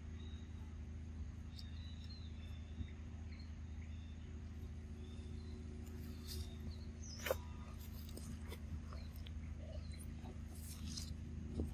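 A few short, high animal calls over a steady low hum. The sharpest and loudest call comes just past halfway.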